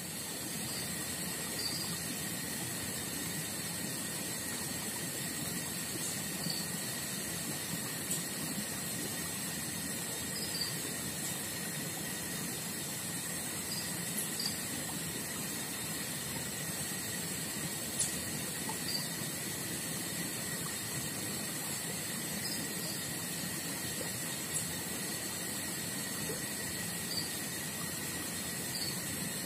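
Steady outdoor ambience: insects droning at a few steady high pitches over an even rushing hiss, with short faint chirps every few seconds.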